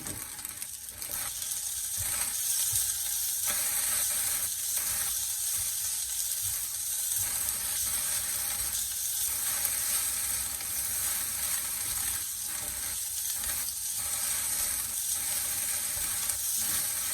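Fried rice with corned beef sizzling steadily in a hot pan, stirred and tossed with a spatula that scrapes and knocks against the pan at irregular intervals.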